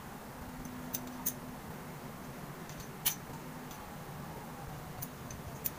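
Scattered small metal clicks of parts being handled as a scope mount is fitted to a rifle's rail, about five in all, the loudest about three seconds in, over a steady low background hum.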